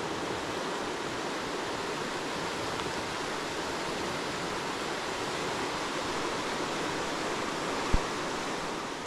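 Steady rushing noise of heavy rain and river water, with a single short low bump about eight seconds in.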